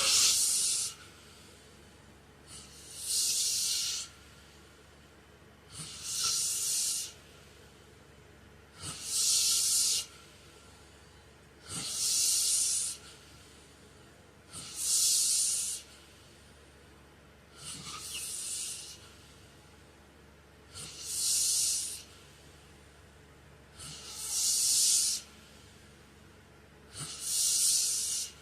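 A sleeping man's heavy snoring breaths, one about every three seconds and each about a second long. They are airy, with little low rumble.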